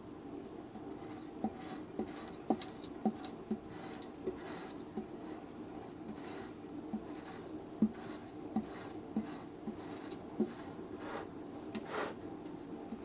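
Light, irregular taps and scratches, about one or two a second: a cat pawing at a clock's glass face.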